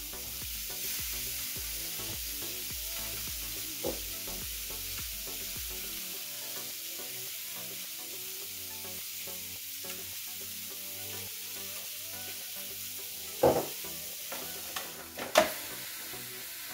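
Zucchini slices sizzling on the hot plates of a Tefal OptiGrill electric contact grill: a steady frying hiss. Near the end come two sharp knocks.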